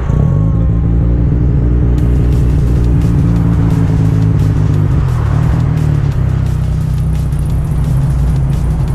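Mazda RX-7's rotary engine running, a loud, deep exhaust drone close behind the car as it pulls slowly away.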